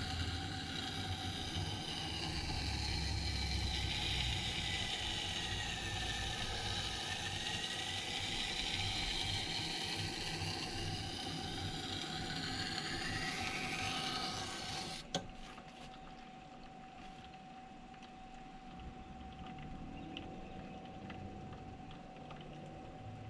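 Knife blade being ground on the rotating stone of a wet sharpening system, a gritty grinding whose pitch sweeps up and down as the edge is drawn along the stone, over the machine's steady motor hum. About fifteen seconds in the blade comes off the stone suddenly, leaving the hum and a few faint ticks.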